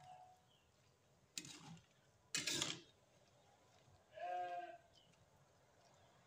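A metal spoon stirring and scraping greens in a wok, two short scrapes about a second and a half and two and a half seconds in, the second louder. About four seconds in comes a short, half-second pitched cry in the background.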